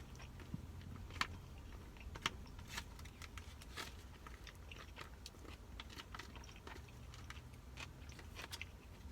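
A person chewing crunchy roll sushi close to the microphone. Irregular soft crunches and wet mouth clicks come every second or so.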